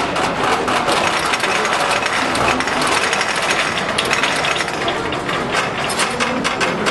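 Balls clattering along the metal rails and through the towers of a large ball-run machine: a dense, unbroken run of quick clicks and rattles.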